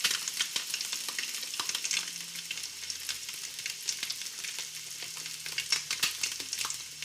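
Food frying in hot oil: a steady sizzle with frequent small crackles and pops.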